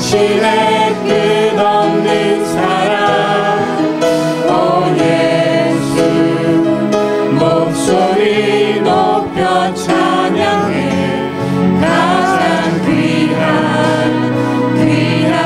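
Worship band singing: several voices singing together into microphones over strummed acoustic guitar.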